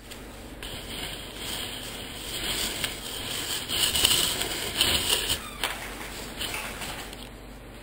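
Handling noise from a camera being picked up and carried: rustling and scraping on its microphone, loudest in the middle with a few sharp knocks, dying away near the end.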